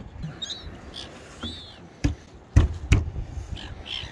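Birds giving short, arching calls about once a second over a low wind rumble. Three sharp knocks land about two to three seconds in.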